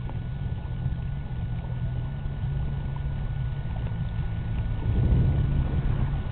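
An engine running steadily with a low hum, getting louder about five seconds in.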